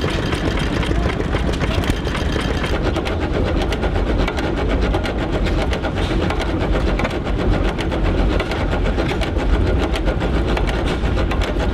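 An old engine running steadily with a fast, even train of knocking beats.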